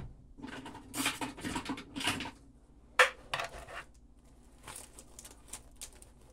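Irregular clatter and clicks of metal parts and connectors being handled on a workbench, with one sharp click about three seconds in, then a few faint ticks.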